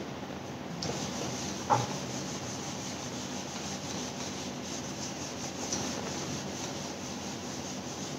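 Handheld whiteboard eraser rubbing across a whiteboard in continuous wiping strokes, with one sharp knock a little under two seconds in.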